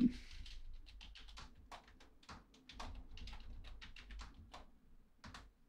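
Computer keyboard keys clicking faintly in a quick, irregular run of about twenty key presses as a password is typed.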